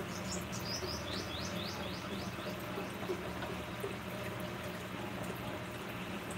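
A bird gives a quick run of about a dozen high chirps that step down in pitch, lasting about two seconds, over a steady wash of running water and a low hum.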